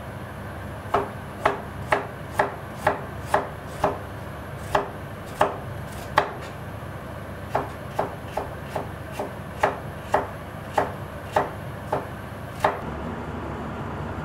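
A kitchen knife slicing ginger on a cutting board: a run of sharp knocks about two a second, with a short pause midway, stopping a little before the end.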